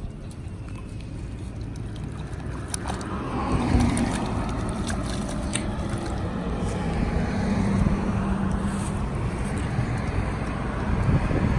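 Road traffic noise: a low rumble with a steady engine hum, swelling about three seconds in and staying up.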